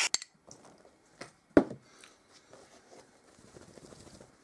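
Light handling clicks and one sharp knock on a wooden table about one and a half seconds in, then faint pattering and rustling as water is put on a freshly waxed cap to test that it beads off.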